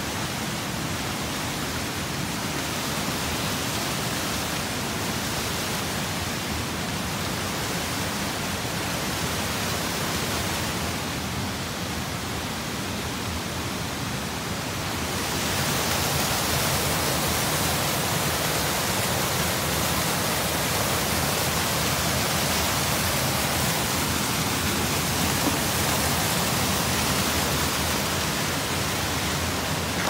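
Steady rushing of a cascading mountain stream, getting louder about halfway through.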